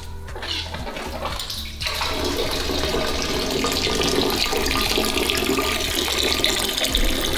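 Apple cider streaming out of a plastic siphon tube and splashing into a metal stockpot partly full of cider. The stream gets louder about two seconds in and then runs steadily.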